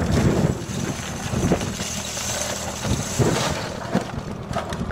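Loose small-arms cartridges being dumped from metal ammo cans into plywood crates, with a rattling rush in the middle and scattered knocks and clanks of the cans on the wood. An engine idles steadily underneath.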